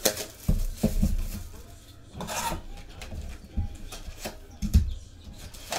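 A cardboard Panini Prizm trading-card hobby box being handled and opened on a table: a series of knocks and thumps as it is turned over and set down, with a scraping cardboard rub about two seconds in.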